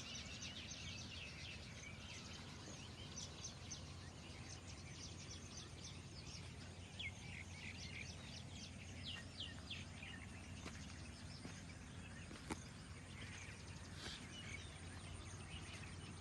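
Birds chirping: many short, quick, high chirps scattered through, over a faint steady low rumble of background noise, with one sharp click about twelve seconds in.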